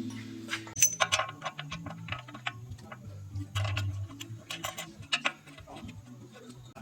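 Irregular sharp clicks and light metallic clinks of hand tools at work, over quiet background music.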